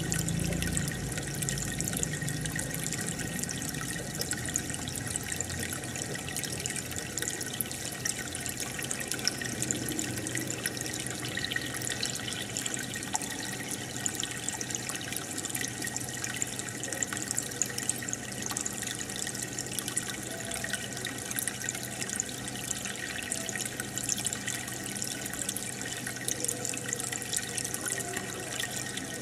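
Aquarium water bubbling and trickling steadily from the air stone and filter, a constant fizz of fine bubble pops over a faint steady low hum.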